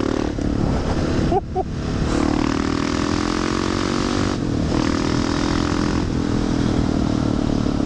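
Husqvarna 701 supermoto's single-cylinder engine running under throttle through an unbaffled Wings aftermarket exhaust, loud, its pitch shifting as the bike rides on, with brief dips about a second and a half and four and a half seconds in.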